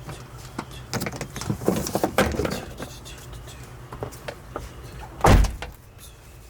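Rustling and clattering as loose parts and material are handled inside the car's interior, then a single heavy thump about five seconds in.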